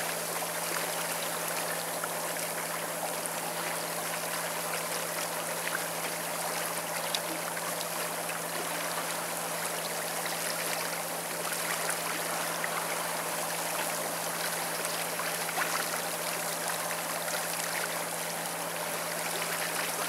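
Steady rush and wash of water along the hull of a moving boat, over a steady low hum from the boat's engine.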